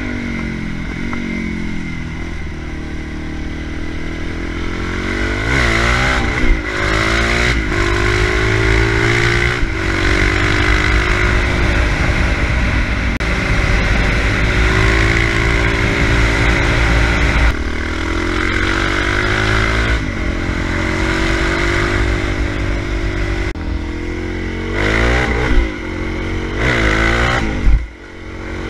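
Suzuki DR-Z400's single-cylinder four-stroke engine running under way, revving up and dropping back several times as the bike accelerates and shifts. Wind rushes over the helmet-mounted camera throughout.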